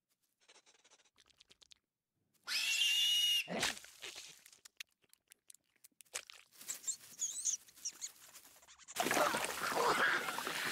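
Cartoon rat sound effects: faint quick lapping, then a shrill rat screech lasting about a second, followed by tearing knocks and squeaks. From about nine seconds a loud gushing spray of liquid.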